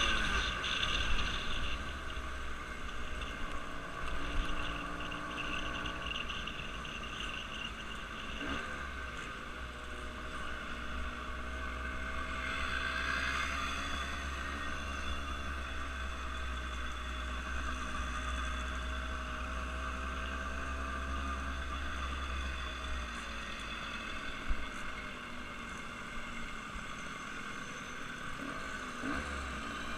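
An engine running steadily with a low rumble and a faint hum whose pitch drifts slightly.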